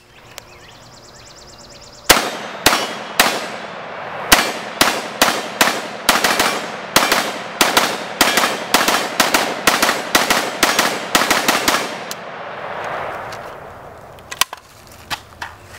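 A 7.62x39 stamped-receiver AK-47 underfolder fired shot after shot through a full magazine, about thirty loud sharp reports. The first few come about half a second apart, then the pace quickens to about three or four a second, and every round cycles without a stoppage. The echo dies away after the last shot, followed by a few light metallic clicks as the rifle is handled.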